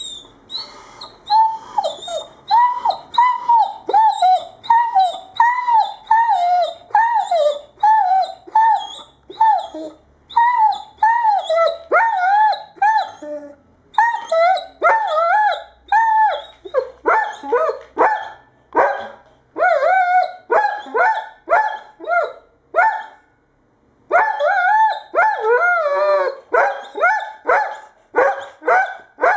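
Irish Setter barking and whining in a long run of short, pitched calls, about two a second, each falling in pitch, with a few brief pauses.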